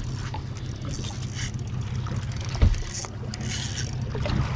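Boat motor idling steadily, with water splashing and lapping against the hull and wind buffeting the microphone. A single low thump about two and a half seconds in.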